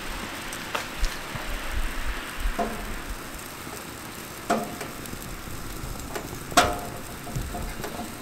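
Gas-fired ceramic infrared burners of a 1650 fire pro upper-heat steak grill hissing steadily at full power. A few sharp crackles cut through, the loudest about four and a half and six and a half seconds in.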